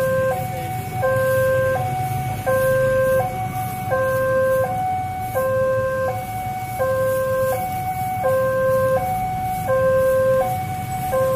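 Railway level-crossing warning alarm sounding an electronic two-tone signal: a lower and a higher tone alternate evenly, each held for under a second, warning of an approaching train. Motorcycle engines idle underneath.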